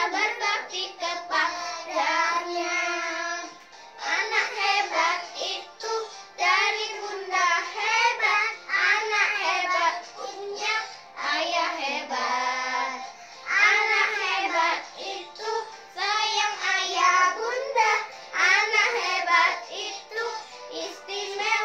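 Three children singing a children's song together, phrase after phrase with short breaths between.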